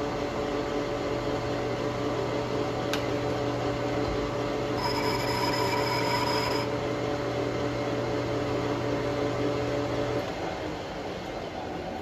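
Metal lathe boring out a shaft coupler with a carbide-insert boring bar on slow carriage feed: a steady geared hum with cutting noise from an interrupted cut through the old keyway. A high squeal rings for about two seconds near the middle, and the hum drops away about ten seconds in.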